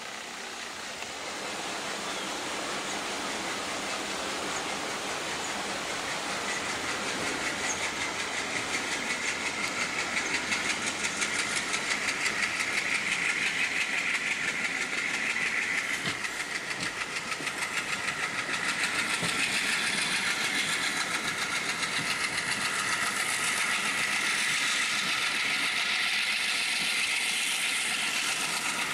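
WDM-3D diesel locomotive's ALCO 251 diesel engine chugging hard under full load as it pulls a passenger train away from a stop, a fast steady exhaust beat. It fades in at the start and grows louder over the first several seconds as the train gathers speed, heard from a coach window down the train.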